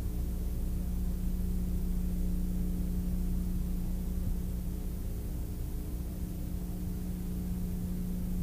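Aerobatic plane's engine droning steadily, heard from inside the cockpit, with a faint rush of air.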